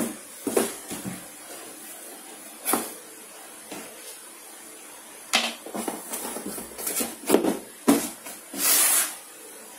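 Handling sounds from the unboxing of a pair of safety shoes and their packaging: scattered soft knocks and rustles, thickest in the second half, with one longer rustle near the end.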